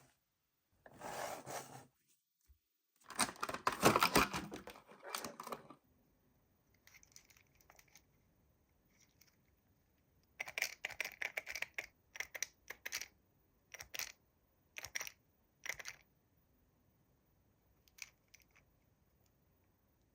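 Toy packaging being torn open and handled. There are noisy bursts of tearing and rustling, the loudest a few seconds in, then a run of short crinkles and clicks.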